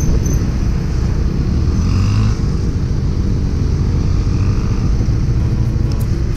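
Steady low rumble of a moving vehicle on the road, with small motorcycles and scooters passing close by.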